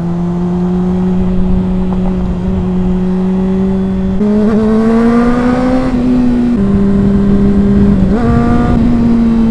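Honda CBR600RR inline-four engine running at fairly steady revs while riding. Its pitch steps up about four seconds in, drops back briefly, then rises again near the end.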